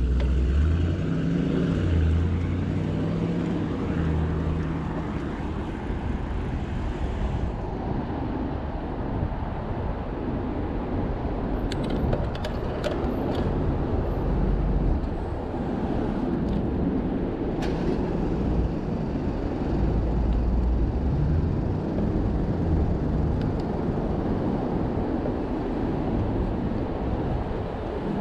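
Road traffic heard from a bicycle riding along a busy main road. Cars and trucks pass with a low engine hum that swells and fades, over a steady rush of road and wind noise, with a few light clicks around the middle.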